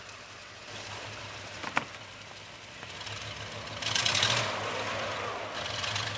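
A vehicle engine idling with a steady low hum. There is one sharp click about two seconds in, and loud bursts of rushing hiss come about four seconds in and again near the end.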